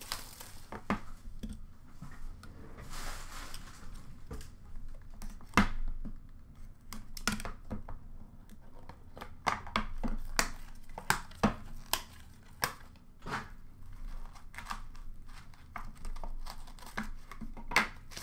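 Plastic wrap on a trading card box being torn and crinkled, then a cardboard box and card case handled, with many short sharp clicks and knocks.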